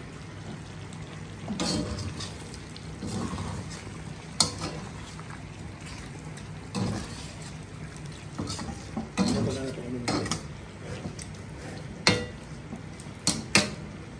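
Metal spatula stirring and scraping adobo in a steel wok, with irregular scrapes and a few sharp clinks of the spatula against the pan, the meat frying in its thickening sauce.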